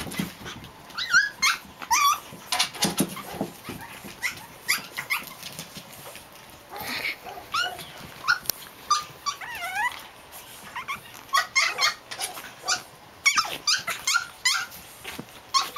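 Japanese Chin puppies yipping and squealing in play, many short high-pitched calls in quick succession, with some play-growling.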